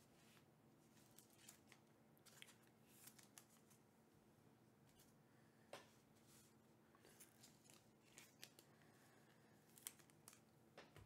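Near silence with faint scattered clicks and rustles of trading cards and a foil pack being handled.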